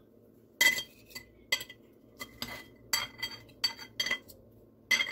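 A metal fork clinking and scraping against a ceramic plate while cutting into a slice of pie: about a dozen short, ringing clinks at uneven intervals.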